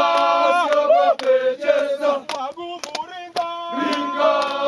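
A group of mountain guides and porters singing together, with hand claps.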